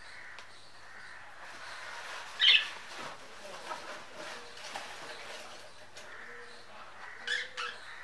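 Pet budgerigars chattering softly, with one loud sharp squawk about two and a half seconds in and two quick shorter calls near the end.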